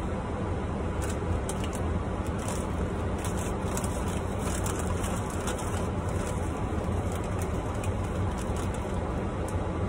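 Steady low rumble inside a car. Over it, a plastic snack bag crinkles as it is handled, mostly in the first half.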